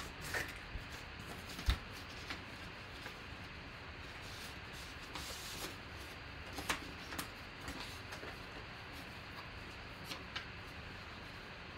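Rustling of fabric and paper with scattered light clicks and knocks as hands handle a jersey and a printed paper certificate in a cardboard box; a longer rustle comes about halfway through.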